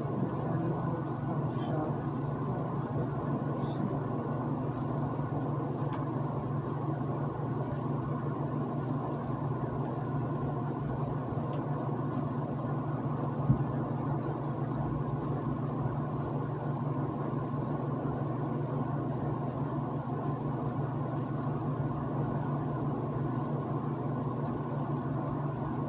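Steady low hum and hiss of room noise, like a running fan or machine, with one short knock about halfway through.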